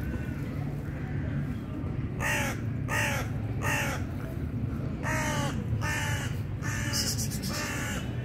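A crow cawing in two runs: three caws about two seconds in, then five more from about five seconds in, each short and spaced under a second apart, over a steady low rumble.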